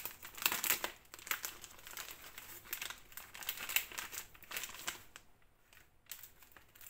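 Clear plastic resealable bag crinkling as hands open it and pull out the kit pieces inside, in irregular crackles that ease off about five seconds in.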